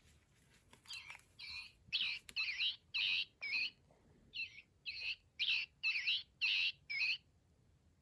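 Recorded northern cardinal song played from a plush cardinal toy's sound chip: a run of short, loud, repeated whistled notes, about two a second, in two phrases with a brief pause between them.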